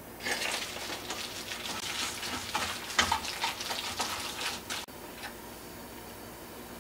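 Gloved hands tossing marinated chicken thigh pieces with potato starch in a stainless steel bowl: wet squishing and crackly rustling. The mixing stops with a small click a little before the fifth second, and the rest is quiet.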